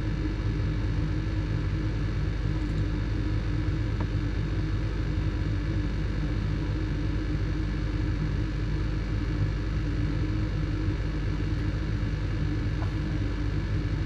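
Gas furnace draft inducer motor running with a steady hum, pulling air through the furnace before the burners light.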